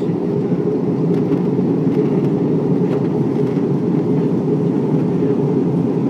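Steady cabin noise inside an Airbus A321 airliner in flight on descent: an even, low rush of airflow and engines.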